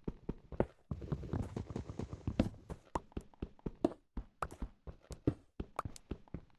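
A fast, irregular run of sharp clicks and knocks, with a stretch of rough scraping noise about a second in.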